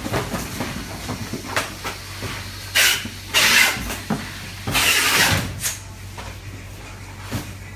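Lipovak gas-flush vacuum packing machine running with a steady low hum, broken by several short bursts of hissing air about three and five seconds in, with a few light knocks.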